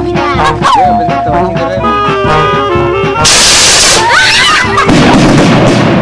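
Band music playing; about three seconds in, a skyrocket launches with a loud, short hiss, followed near the end by a deep boom as it bursts.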